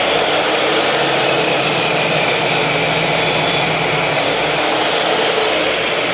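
Mitre saw motor running at full speed, a steady loud whine, while it makes a 15-degree angled cut through timber.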